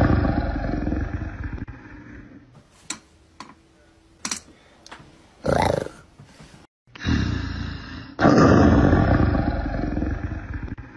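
Big cat roar sound effect, loud and fading over about two seconds. Then a few faint clicks and a short voice-like sound, and the roar plays again about seven seconds in, swelling a second later and slowly fading.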